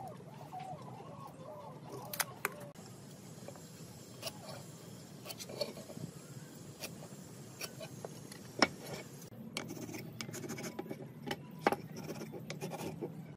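Timber being marked out by hand: a pencil scratching lines on the wood, a tape measure and steel rule sliding and tapping on the board, and a wooden marking gauge scraping along its edge. Light scraping throughout, with scattered sharp taps, the loudest about two-thirds of the way through.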